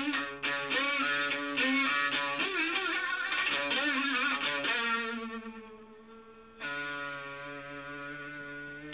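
Lowebow Cat diddley bow played through an MXR Distortion Plus pedal and a 1957 Fender Champ amp, giving a distorted electric tone. A run of quick notes with wavering, sliding pitch gives way to a held note that fades, then a new note is struck about two-thirds of the way through and rings on.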